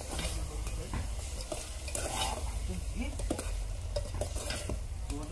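A spoon stirring chicken curry in an aluminium pot, with irregular scraping and clicking against the metal, while the curry sizzles over a wood fire.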